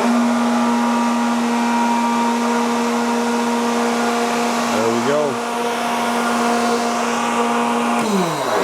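Sullivan Palatek 30D7 30 hp rotary screw air compressor running after its auto-restart timer brings it back on: a steady motor hum and whine that winds down in pitch near the end as the unit shuts off.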